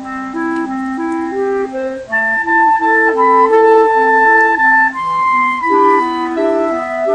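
Clarinet quartet playing a slow piece: several clarinets holding notes together in harmony, the parts moving stepwise, getting louder about two seconds in.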